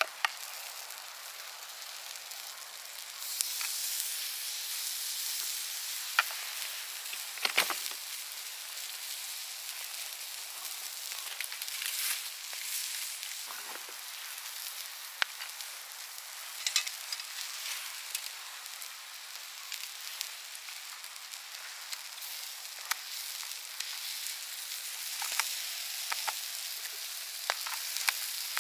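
Food sizzling steadily as it cooks, with scattered sharp pops; the sizzle grows louder about three seconds in.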